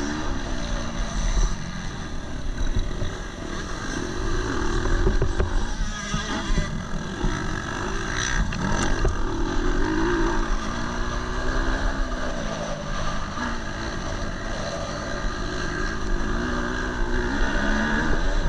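KTM 250 SX-F motocross bike's single-cylinder four-stroke engine under way, its pitch rising and falling again and again as the throttle is opened and closed.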